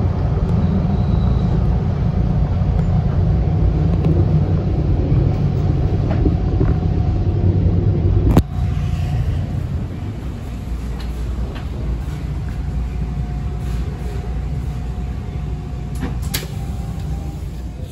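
TTC T1 subway train running in along the station platform and slowing to a stop: a loud low rumble with a faint steady whine, which drops to a quieter rumble after a sharp click about eight seconds in. Another click comes near the end.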